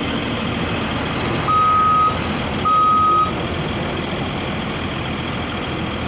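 Two long, steady warning beeps from a mobile crane's motion alarm, about half a second apart, over the steady running of the crane's engine.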